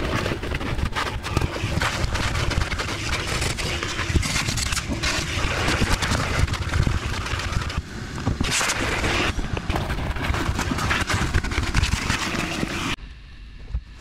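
Shop vacuum running, its hose nozzle working over boat carpet with many small clicks and knocks. The noise stops abruptly near the end.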